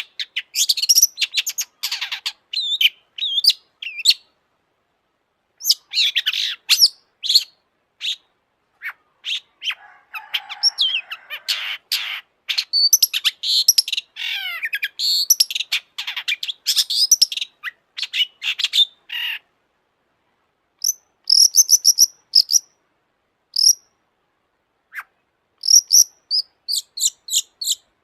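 Long-tailed shrike (cendet) singing in bursts of varied, quick, high phrases with short pauses between them. It has a harsh, raspy stretch about ten seconds in, and rapid runs of sharp high notes near the end.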